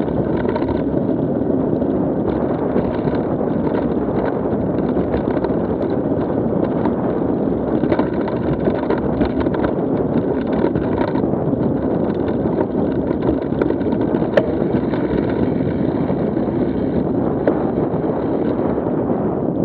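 Mountain bike riding on a dirt trail, heard from a camera on the bike: steady wind rushing over the microphone mixed with the knobby tyres rumbling over dirt and gravel. A couple of sharp clicks or rattles come in the second half.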